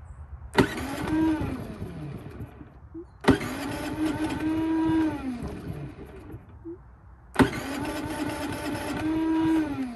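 The electric starter of a Predator 3500-watt inverter generator cranks its engine three times, each try lasting about two seconds. Each try starts with a sharp click and winds down in pitch at the end. The engine does not catch.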